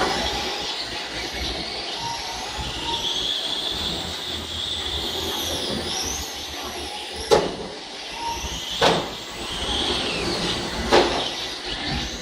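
Remote-control model trucks racing: their motors whine, rising and falling in pitch as they speed up and slow down. Three sharp knocks come about seven, nine and eleven seconds in.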